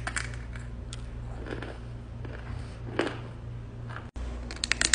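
Edible chalk being bitten and chewed: a few faint crunches, then a quick run of crisp crunching near the end, over a steady low hum.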